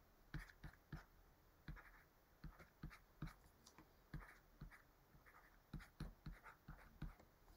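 Faint stylus taps and scratches on a drawing tablet as words are handwritten: a string of short, irregular taps, about two or three a second.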